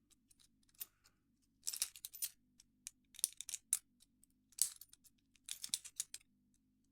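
Small sharp metallic clicks and rattles in about five quick clusters, from a Silverline lever padlock and lock-picking tools being handled.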